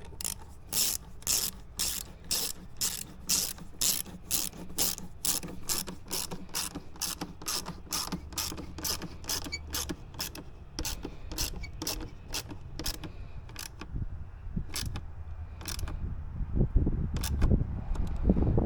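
Hand ratchet wrench clicking in steady strokes, about two clicks a second, as a fastener is worked under the hood. The clicking thins out after about 13 seconds, and a few louder knocks and tool handling follow near the end.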